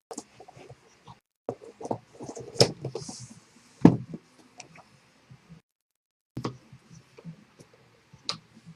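Irregular clicks, knocks and rustling from trading-card boxes and packaging being handled and opened, with a brief hiss about three seconds in.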